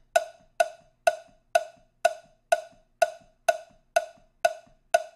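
A cowbell struck in a steady, even beat, about two strikes a second, each hit ringing briefly and dying away before the next.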